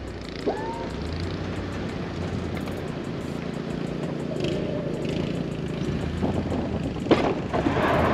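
Plow truck's engine running steadily as it plows wet, slushy snow, with noise building to a louder burst near the end.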